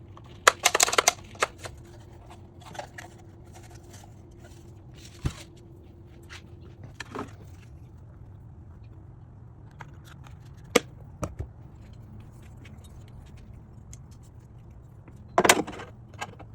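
Scattered clicks, knocks and short rustles of plastic parts and packaging being handled, with a louder rustling burst about a second in and another near the end, over a steady low hum.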